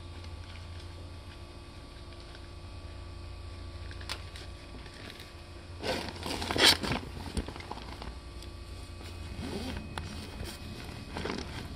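Steady electrical hum inside a Seibu 6000 series electric train, with no rising or falling motor whine, and a brief loud hiss or rustle about six seconds in.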